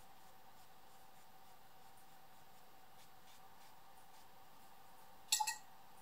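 Faint strokes of a synthetic brush with gouache on sketchbook paper over a low steady hum, then a quick cluster of about three sharp clicks, the loudest sound, about five seconds in.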